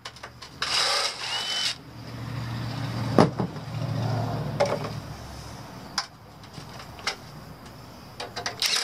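Cordless drill-driver running screws into the sheet metal of a furnace's secondary heat exchanger: a short run about half a second in, then a longer run of a few seconds with a sharp knock partway through, followed by a few light clicks.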